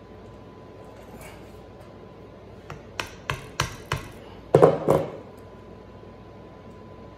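Hammer striking the handle of a screwdriver, driving the blade in at the base of a velvet mule deer antler to free the skin. Four sharp taps about a third of a second apart, then two louder, heavier blows.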